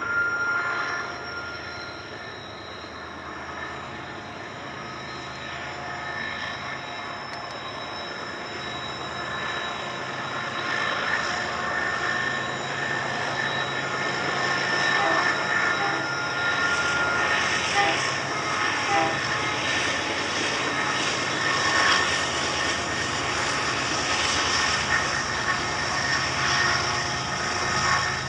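Freight train's diesel-electric locomotives running under power, a low steady engine drone with high whining tones above it, growing louder as the train draws closer.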